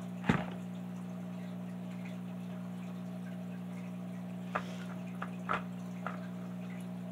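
Small clicks and taps from hands handling fly-tying materials, one sharper click just after the start and a few light ones about two-thirds of the way through, over a steady low hum.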